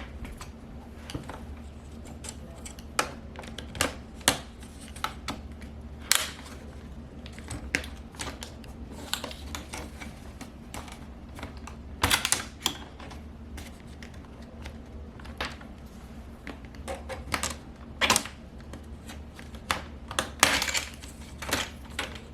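Plastic clips of a Dell Inspiron 5566 laptop's display bezel clicking and snapping loose as a Jimmy knife pries around its edge: irregular sharp clicks, some much louder than others, over a low steady hum.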